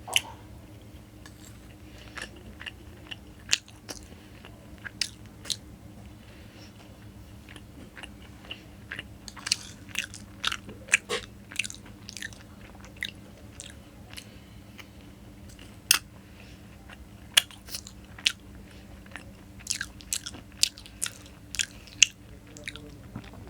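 Close-miked eating sounds: a person chewing and biting into soft, syrupy Indian sweets, with irregular sharp wet clicks and lip smacks coming in clusters. A faint steady hum runs underneath.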